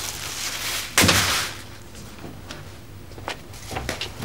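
A hiss, then a sudden loud bang about a second in that dies away over about half a second, followed by a few faint clicks.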